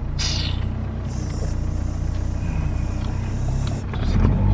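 A car's engine and road noise as a steady low rumble while it creeps slowly along a rough track, with a higher hiss over the middle few seconds.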